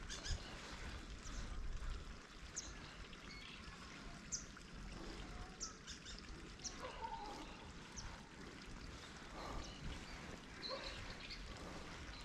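Faint outdoor ambience of trickling water, with a few short, high bird chirps scattered through it and one longer call near the middle.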